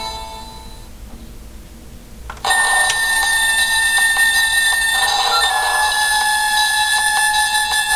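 Electronic sound effect from a Bandai DX Voltes V Camp Big Falcon base toy. One effect fades away, then about two and a half seconds in a loud, steady alarm-like electronic tone starts suddenly.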